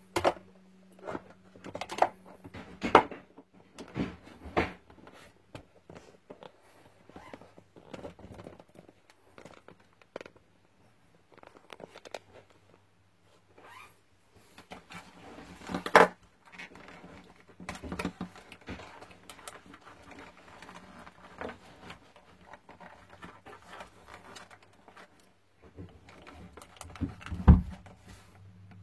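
Scattered clicks, taps and knocks of plastic parts being handled as a Bluetooth earmuff headset is opened up by hand, with a few louder knocks among them.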